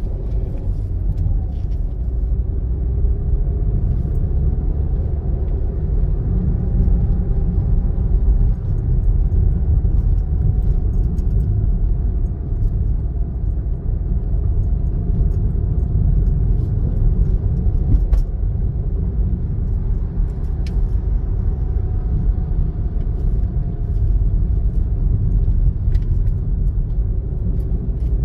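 Steady low road and engine rumble inside a moving car's cabin, with a faint steady whine over it.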